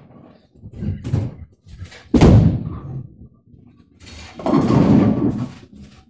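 A heavy thud about two seconds in, then a bowling ball crashing into the pins about two and a half seconds later, hitting the head pin square and leaving the 4 and 6 pins standing.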